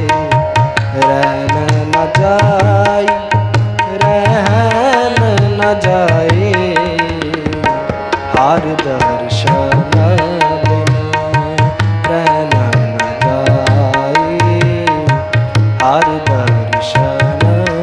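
Sikh kirtan music: harmoniums hold steady reed tones while a tabla keeps a steady rhythm of deep bass strokes and sharp treble strokes, and a singing voice glides between notes over them.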